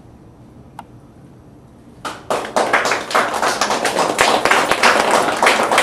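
A small audience starts applauding about two seconds in, a dense run of hand claps that keeps going.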